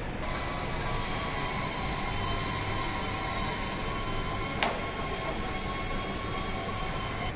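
Steady machinery noise of a car factory hall, with a thin high whine over it and one sharp click about four and a half seconds in.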